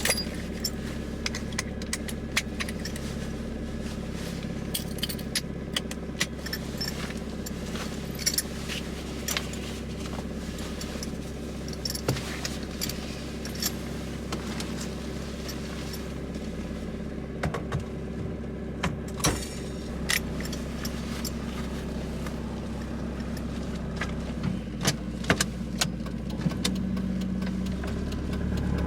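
High-mileage Mazda Miata NA6 1.6-litre four-cylinder engine idling steadily, with an irregular metallic rattle of sharp clicks over it. It is a rattle that the owner first took for loose exhaust bolts, and that an oil and filter change cured.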